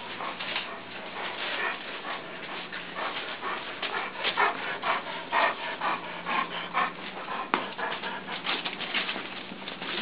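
Several small dogs in a wire crate, stirring and making many short, irregular excited noises.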